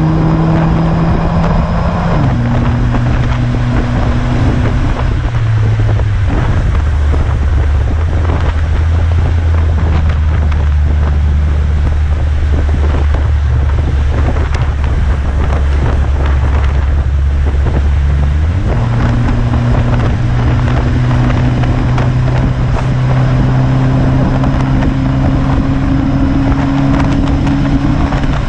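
Chrysler PT Cruiser's four-cylinder engine through a Gibson cat-back exhaust under way. The exhaust note drops in pitch in steps during the first few seconds, holds a low steady drone, then jumps higher about two-thirds of the way in and slowly climbs. Heavy wind and rain noise on the microphone runs over it.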